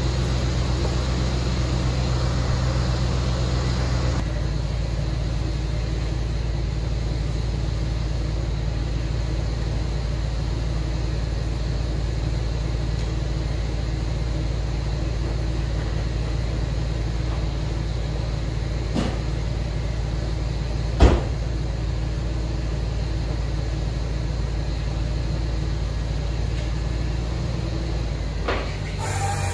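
GMC plow truck engine idling steadily, with a single sharp knock about three-quarters of the way through.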